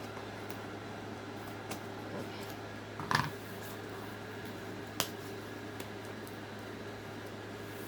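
Opening and handling a mail package: scattered light clicks and taps over a steady background hum, a short louder scrape about three seconds in, and a sharp click about five seconds in.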